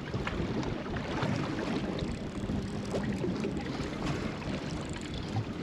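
Steady outdoor wind and water noise.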